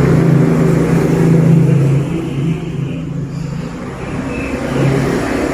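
A motor vehicle engine running steadily close by. It is loudest in the first two seconds, eases off, then swells again near the end.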